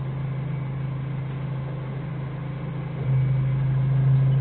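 Forklift engine running steadily, then picking up and running louder about three seconds in as it is given throttle.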